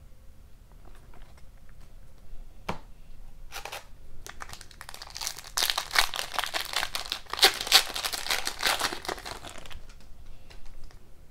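Foil wrapper of an Upper Deck hockey card pack being torn open and crinkled by hand: a dense crackling run of about five seconds in the middle, preceded by a few faint clicks.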